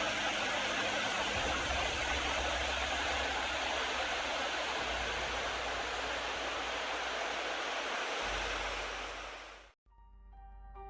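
Rushing water of a glacial mountain stream, a steady dense roar that fades out about nine seconds in. Soft piano music begins just before the end.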